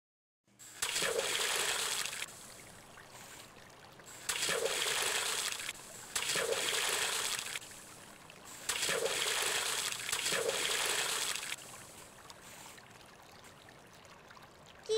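Water splashing in a pond in five separate bursts of a second or so each, as of someone dunking under and coming up again, with a faint steady water wash between the splashes.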